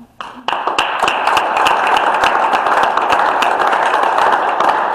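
Audience applauding: many people clapping together, starting about half a second in and staying loud and steady.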